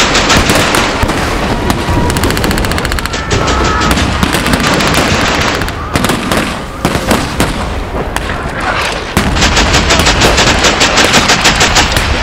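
Blank gunfire from a battle reenactment: scattered rifle shots mixed with rapid machine-gun bursts, one about two seconds in and a longer one starting about three seconds before the end.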